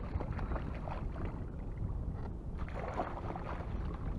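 Water splashing as a hooked fish thrashes at the surface beside a kayak and is scooped up in a landing net, over a steady low rumble of wind on the microphone.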